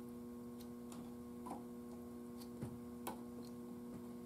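Faint steady mains hum, with a few light, irregular clicks of multimeter test probes against the radio's terminal posts.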